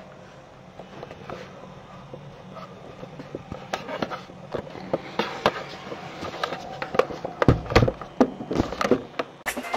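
Irregular knocks, clicks and rubbing of a handheld camera being moved and set in place, getting busier toward the end, with one heavier low thump about three-quarters of the way through.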